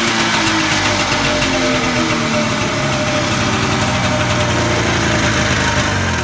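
Arctic Cat 340cc two-cylinder two-stroke engine running at idle with no throttle cable fitted, soon after a pull start. Its pitch slides down over the first few seconds and then holds steady. It is running really decent, though the owner thinks the jetting may be a little rich.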